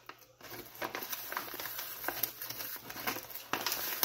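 Kraft-paper pouch crinkling and rustling as it is handled and reached into, with scattered small sharp ticks.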